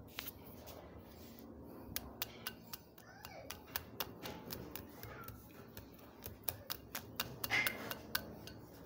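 Wire whisk mixing cake batter in a glass bowl, its wires clicking and tapping irregularly against the glass.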